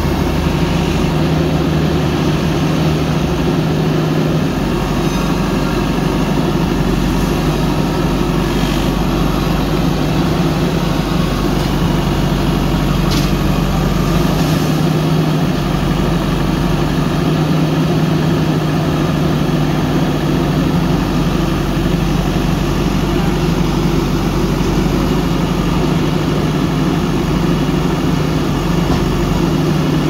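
JCB backhoe loader's diesel engine running steadily while the machine works its front loader bucket.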